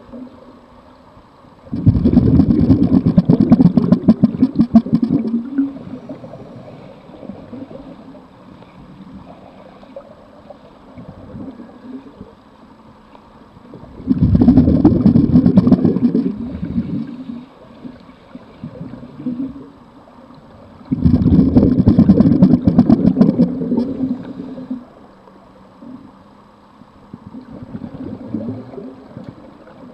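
A scuba diver breathing through a regulator underwater: three loud bursts of exhaust bubbles, each about three seconds long, with quieter inhalations between them. A fourth burst begins at the very end.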